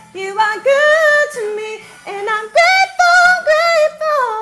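A woman's soprano voice sings a gospel refrain line with vibrato in a high register over faint low accompaniment. The phrase closes on a long held note that begins near the end.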